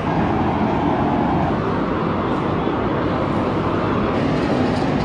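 Steady rumble of vehicle noise: an even, continuous din with no distinct events.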